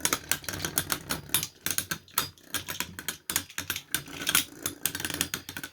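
3D-printed Beyblade battle tops spinning and colliding in a stadium: a dense, irregular rattle of small plastic clicks and knocks.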